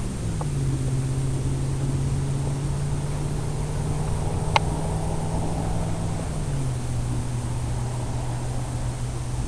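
Radio-controlled FPV plane in flight: a steady low hum that steps down in pitch twice, over an even rush of air noise, with one sharp click about four and a half seconds in.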